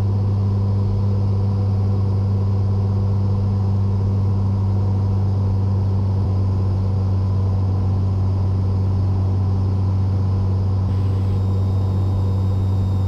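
Cessna 182's piston engine and propeller droning steadily in the cabin during final approach, one even low hum with no change in pitch.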